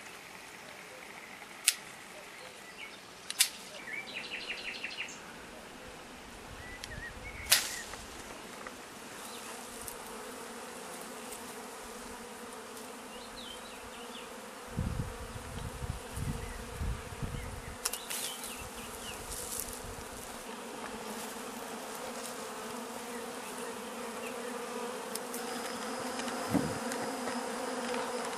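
Honeybee swarm buzzing in a steady hum that grows louder over the last several seconds as the cluster comes close. A few sharp clicks in the first eight seconds, from pruning shears cutting the swarm's branch, and some low bumps around the middle.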